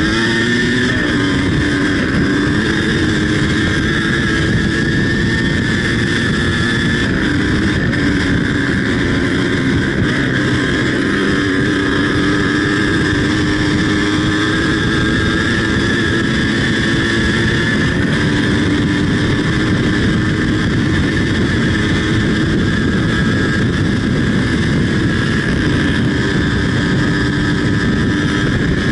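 Yamaha DT 180's single-cylinder two-stroke engine running hard at high revs. It rises in pitch over the first couple of seconds, then holds nearly steady.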